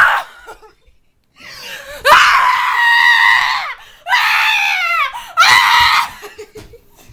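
A girl screaming, high-pitched: one long scream about two seconds in, then two more screams back to back.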